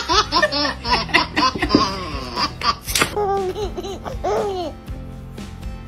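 Babies laughing: a quick run of repeated laughs for the first couple of seconds, then a few shorter laughs from another baby.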